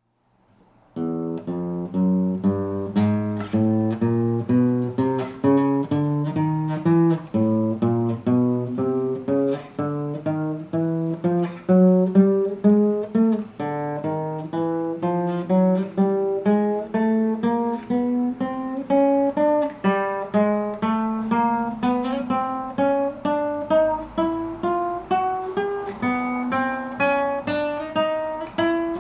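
Acoustic guitar (violão) playing single plucked notes one after another, fret by fret up the neck. Each run climbs in pitch, then drops back lower to climb again on the next string. The notes begin about a second in.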